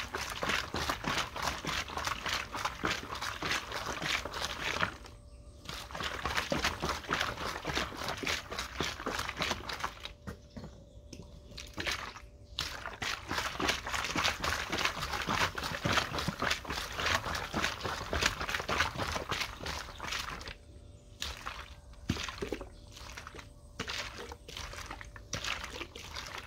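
Rice-washing water sloshing inside a plastic bottle as it is shaken hard and fast to dissolve the sugar settled at the bottom, a stage in mixing a rice-water microbial fertilizer. The shaking comes in spells, stopping briefly about five seconds in, again around ten to twelve seconds, and near twenty-one seconds.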